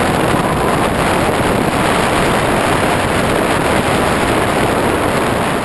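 Steady rush of wind and motor noise picked up in flight by the onboard camera of a Skywalker fixed-wing FPV plane; it starts to fade near the end.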